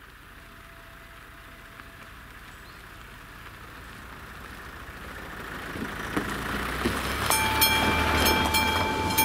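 A car approaches over the level crossing and passes close by, its engine and tyres getting louder, with a couple of knocks as it goes over the rails. About seven seconds in, the crossing's electronic warning bell starts ringing, about three strokes a second, as the AŽD 71 lights switch to flashing red: a train is coming.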